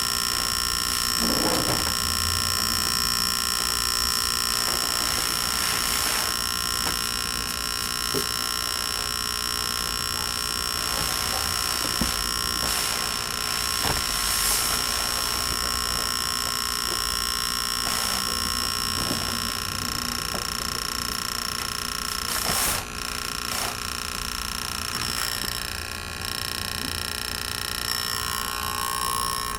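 Repaired electric air-mattress pump running steadily as it inflates the mattress: an even, high-pitched motor whine with a few light knocks.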